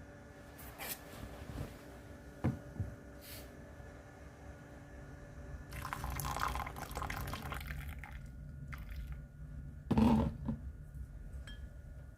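Liquid poured into a glass for a couple of seconds in the middle, among a few small knocks. A louder clunk comes near the end.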